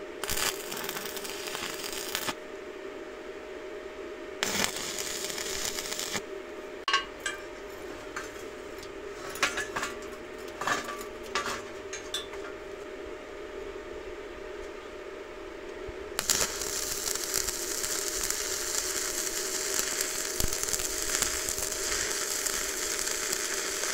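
Stick (MMA) electrode arc welding on steel: two short bursts of crackling arc in the first six seconds as tack welds go on, then a few sharp metallic clanks and knocks as the steel tube is handled, and from about two thirds of the way in one long, steady crackle as a continuous weld bead is laid. A steady hum runs underneath throughout.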